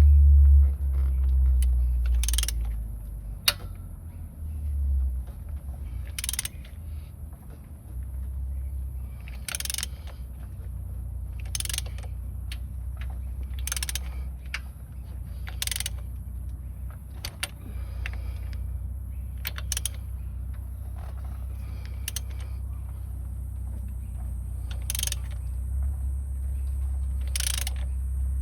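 Land Rover Freelander 2 TD4 2.2-litre diesel engine running with a steady low drone, heavier for the first five seconds or so, over an irregular sharp click or knock every couple of seconds. The noise came on after a timing belt change, and the owner puts it down to the crank or the valves.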